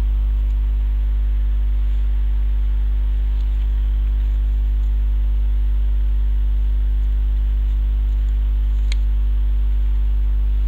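Steady electrical mains hum, a low buzz at a constant level, with a single faint click about nine seconds in.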